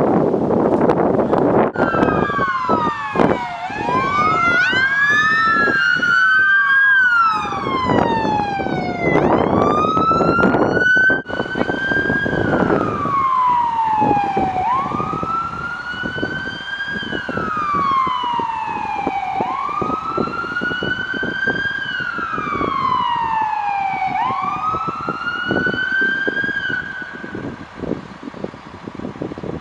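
Emergency vehicle sirens wailing on approach, with an ambulance among them. Two wails overlap at first, then a single slow wail rises and falls about every five seconds and stops near the end. Wind rumbles on the microphone at the start.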